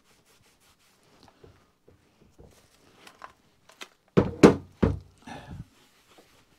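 Light cloth-rubbing and handling sounds on an aluminium Royal Enfield Bullet 500 gearbox casing. About four seconds in come a few heavy thunks as the casing is turned over and set back down on the bench.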